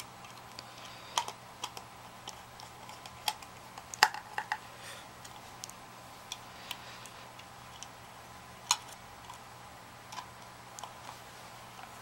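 Scattered sharp clicks and taps of the plastic blower housing and its cover being handled and fitted together, over a faint steady hum.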